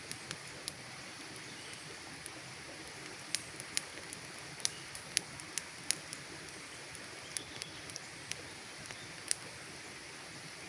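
Campfire crackling: irregular sharp pops and snaps of burning wood, thickest around the middle, over a steady soft hiss.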